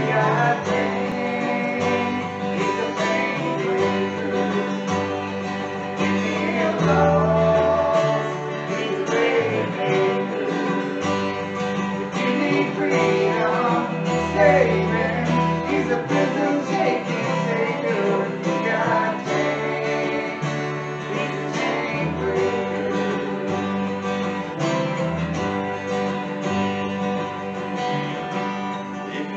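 A small live band playing a song: strummed acoustic guitar over held electric bass notes that change every second or two.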